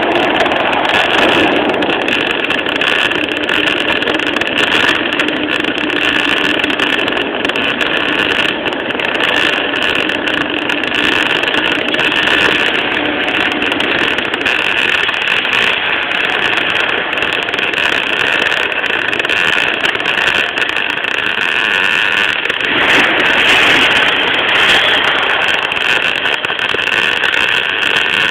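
MAG welding arc (argon with 18% CO2) on thin 1 mm sheet steel, running as a steady crackle that stops abruptly near the end when the arc is broken.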